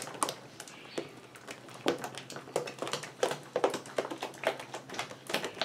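Thick slime mixture of white glue and shaving foam being stirred by hand in a clear acrylic box: a run of short, irregular wet squelches and clicks as it is worked.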